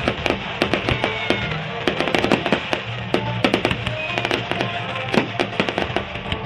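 Aerial firework shells bursting one after another, a rapid run of sharp bangs and crackles. Music plays underneath, the soundtrack of a pyromusical show.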